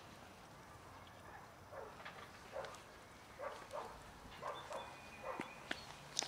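Domestic cats meowing: a run of short meows coming quickly one after another from about two seconds in.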